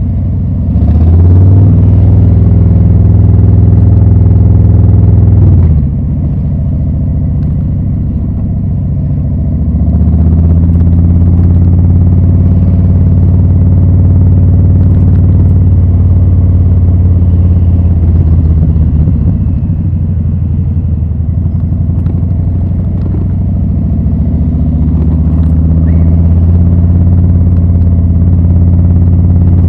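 Harley-Davidson Milwaukee-Eight 114 V-twin running through Rinehart slip-on mufflers under way. It pulls up in pitch about a second in, drops off near six seconds as the throttle closes, then pulls again around ten seconds and runs at a steady cruise, easing slightly and picking up again in the mid-twenties.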